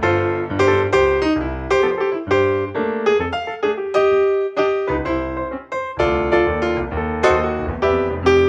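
Background piano music: a keyboard playing a melody of quickly struck notes over a low bass line.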